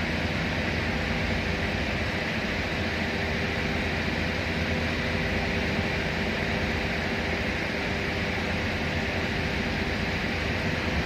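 Steady machinery and ventilation noise: an even, unchanging hiss with a faint constant hum underneath.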